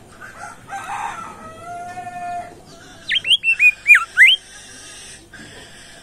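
Caged songbird calling: a harsh note and a held buzzy call, then about three seconds in five loud, quick whistles, each sliding down in pitch.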